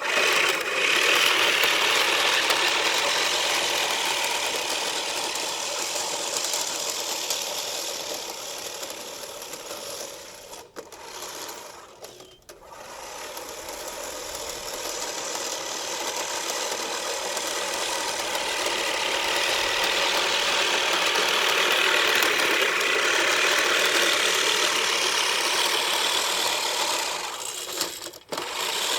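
Lawn mower running continuously, getting quieter toward the middle and louder again later, as if moving away and back. There are a few brief breaks in the sound, twice near the middle and once near the end.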